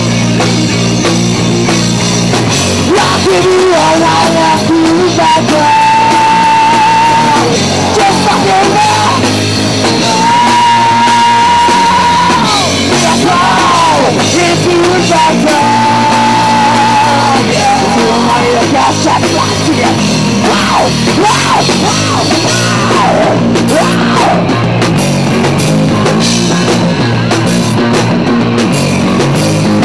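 Live rock band playing loud through amplifiers: electric guitars, bass guitar and drum kit. Long held, wavering lead notes sound a few times in the first half, with quicker melodic runs later on.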